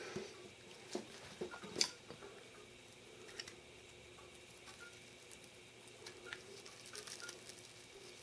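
Faint handling sounds: scattered small clicks and taps from a plastic strawberry huller being worked into strawberries and fruit set down on a wooden tabletop. The sharpest click comes about two seconds in, with a cluster of small ones near the end.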